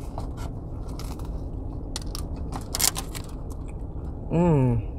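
A person biting into and chewing a toasted, buttered lobster roll bun, with a few short crunchy crackles, the strongest about three seconds in, then an appreciative hummed "mmm" near the end.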